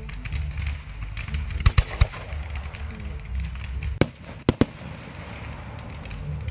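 Fireworks display: shells bursting in the air with sharp bangs, three in quick succession about two seconds in and three more at around four to four and a half seconds, with lighter crackling in between.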